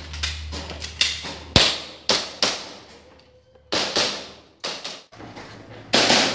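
Airsoft pistol firing single shots: about half a dozen sharp cracks at uneven intervals. Near the end a louder, dense rattling noise sets in.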